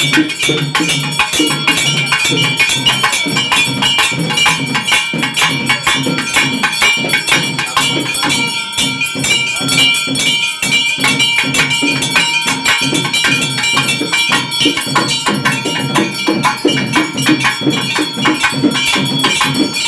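South Indian temple-festival percussion music: fast, dense drumming with clanging metal and a steady ringing tone over it, played without a break.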